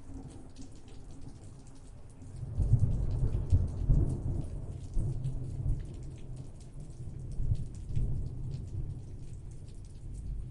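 Thunderstorm: steady rain pattering, with a deep rolling thunder rumble that swells about two and a half seconds in, peaks soon after, and rolls on in weaker surges.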